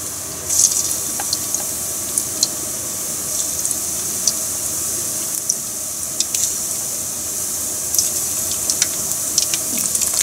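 Battered chicken skin deep-frying in a pan of hot oil: a steady sizzle with scattered sharp crackles and pops.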